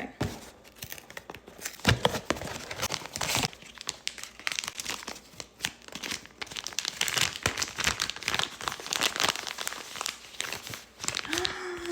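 A blind-box figure's packaging being opened: a wrapper crinkling and tearing in a dense run of crackles.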